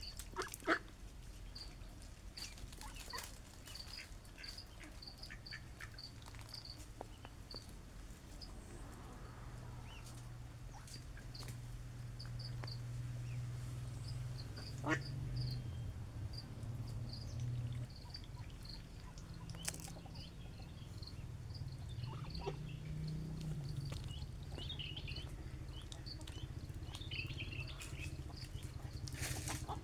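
Farmyard birds chirping in many short, high peeps over a low steady hum, with a few scattered clicks.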